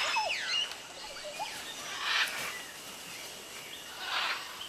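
Tropical forest ambience with birds calling: several short falling whistled calls in the first second and a half, then two short harsh bursts about two and four seconds in, over a steady background hiss.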